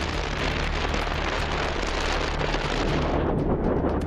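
Wind rushing over the microphone at sea, with a boat engine's steady low drone underneath. Near the end the hiss eases and short crackles come in.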